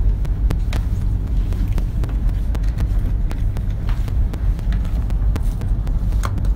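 Moving air buffeting the phone's microphone: a steady low rumble with frequent small crackles.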